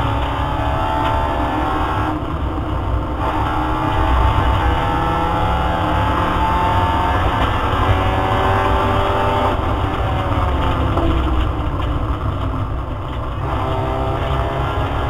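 Opel Astra GSi rally car's engine under hard acceleration, heard from inside the cabin. Its pitch climbs and then drops at each gear change, several times, over a steady low road rumble.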